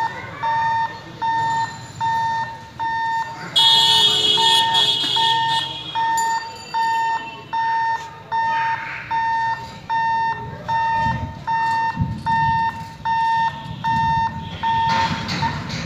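Level-crossing warning alarm beeping in an even, steady rhythm, about three beeps every two seconds, while the boom barrier is moving; it stops about fifteen seconds in. A louder hissing burst comes about four seconds in, and passing vehicles' engines rumble underneath later on.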